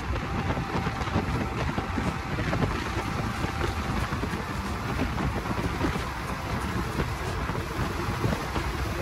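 Moving passenger train heard from on board: a steady rush of wind over the microphone mixed with the rumble and clatter of the wheels on the track.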